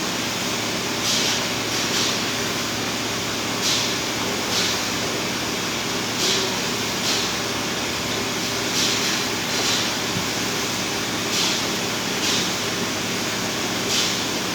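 Steady industrial machinery noise with a low hum, broken by short hissing bursts that come in pairs at an even rhythm, about every two and a half seconds.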